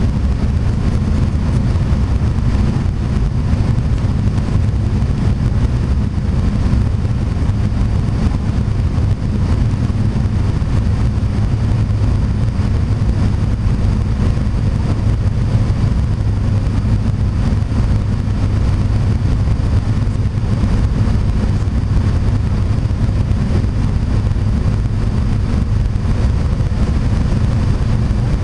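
Steady low drone of a turboprop airliner's engines and propellers heard from inside the cabin, on approach with the landing gear down.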